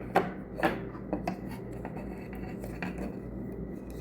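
Light clicks and taps of small hard objects being handled, with a few sharper clicks in the first second and a half, over a faint steady hum. These are most likely the smart glasses being turned over in the hands while their parts are pointed out.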